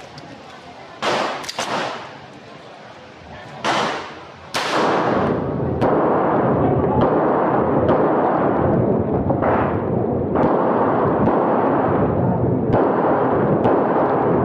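A string of handgun shots from a red-dot-sighted pistol fired during a practical shooting stage, a few close together early on and then roughly one a second. From about a third of the way in, a loud steady rushing noise sits under the shots.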